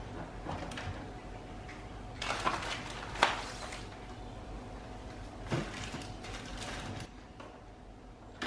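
Groceries being put away into an open refrigerator: plastic-wrapped packs rustling and knocking against the fridge shelves, with a few sharp clicks, over a low steady hum that drops away about seven seconds in.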